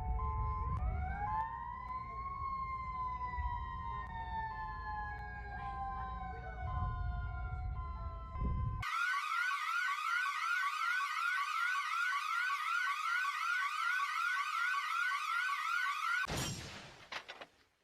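A siren winds up over about two seconds and then slowly winds down over a low rumble. About nine seconds in it cuts abruptly to a clean electronic alarm tone that sweeps quickly, about three sweeps a second, and stops about sixteen seconds in.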